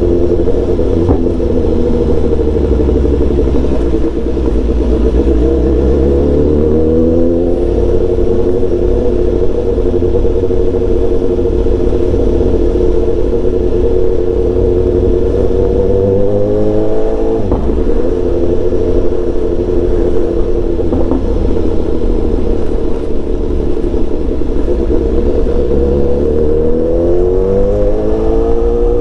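BMW S1000XR's inline-four engine running as the bike is ridden at town speed, its pitch climbing three times as it accelerates, over a steady low rumble.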